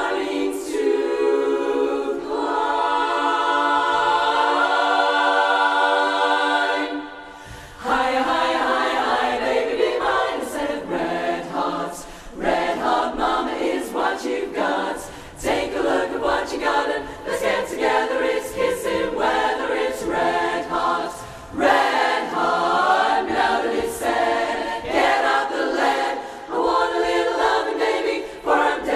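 Women's barbershop chorus singing a cappella in close harmony: a long held chord for the first seven seconds or so, a brief drop, then quicker rhythmic phrases broken by short pauses.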